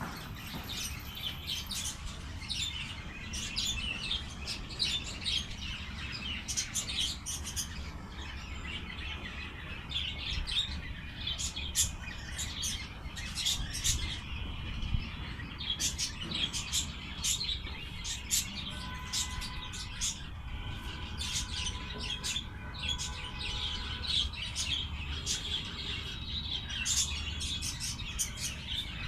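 Many small birds chirping and twittering continuously in quick, overlapping calls, with a few longer held whistled notes about two-thirds of the way through.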